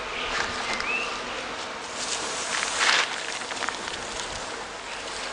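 Rustling, shuffling handling noise and footsteps around an opened honeybee hive, loudest about three seconds in, with faint bee buzzing and a short chirp about a second in.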